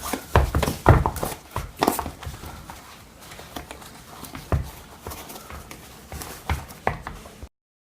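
Laces being pulled out of an Adidas Boost sneaker: rustling and scattered knocks as the shoe is handled, busiest in the first two seconds. The sound cuts off abruptly to silence near the end.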